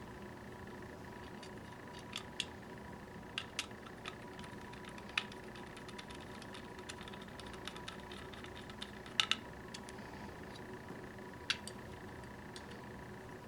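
Scattered small metallic clicks and taps of a screwdriver and screws on the metal back plate of a gumball machine coin mechanism as its securing screws are driven back in, the loudest a quick double click about nine seconds in, over a faint steady hum.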